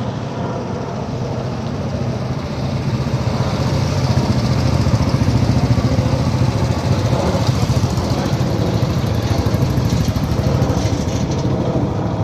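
Several motorcycle engines running at low, steady speed as a column of bikes rides past, growing louder from about three seconds in as they come close.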